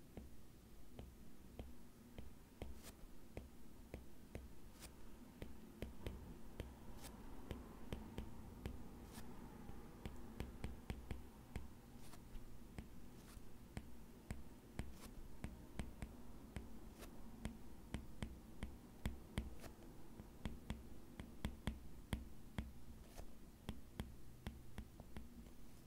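Stylus tip tapping and sliding on a tablet's glass screen while handwriting, a rapid irregular run of faint clicks over a low steady hum.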